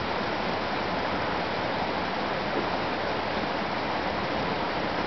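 A mountain creek running, a steady even rush of water with no breaks.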